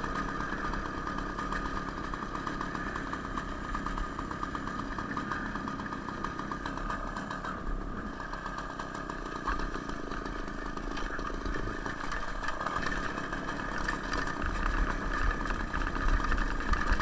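Two-stroke engine of a homemade moped built from a Ural chainsaw, running steadily as it rides, with a rapid firing buzz. A heavier low rumble comes in near the end.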